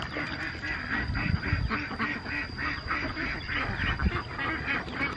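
Rapid repeated animal calls, about four a second, like quacking, with a few low rumbles on the microphone about a second in and near four seconds.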